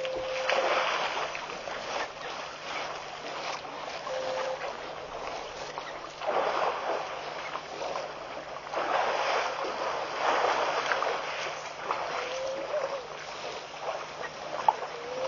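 Water splashing and sloshing in irregular surges as elephants drink and wade at the edge of a waterhole, with a few brief whistle-like notes.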